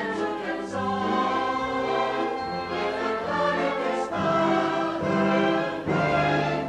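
Stage-musical chorus singing together over an orchestral accompaniment, with brief breaks in the phrasing about four and six seconds in.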